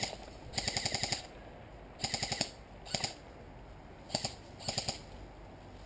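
Airsoft electric rifle firing five short bursts of rapid clicking shots, some bursts only one or two shots long.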